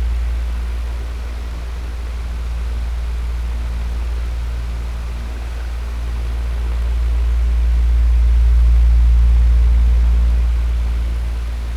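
Electric fan running steadily: a deep motor hum under an even rush of air, swelling slowly louder and softer.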